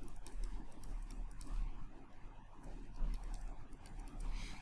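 Faint, irregular tapping and scratching of a stylus writing on a pen tablet, over a low steady mains hum.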